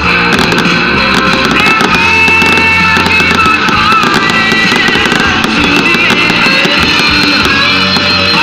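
Fireworks crackling and popping in quick, irregular succession over loud rock music with guitar.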